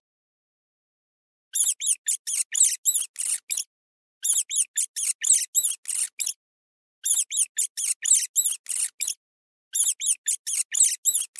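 Rabbit squeaking: rapid high-pitched squeaks, about five a second, in four bursts of around two seconds with short silences between.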